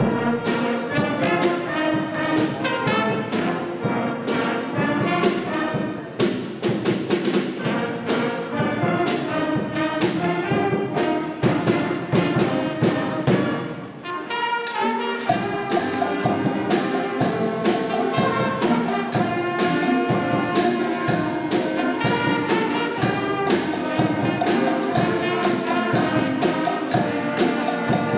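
High school concert band playing, with brass over a steady drumbeat. About halfway through the music drops back for a moment, then a new passage begins.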